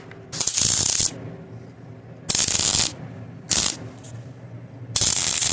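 Welding arc crackling in four short stop-start bursts with pauses between, as weld is laid on the steel patch plates of a cracked skid steer bucket.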